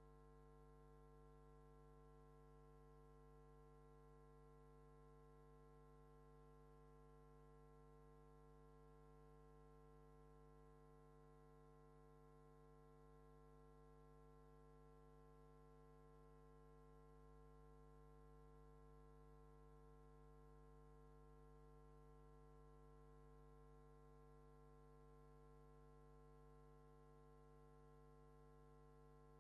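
Near silence, with only a faint, steady hum made of several constant tones.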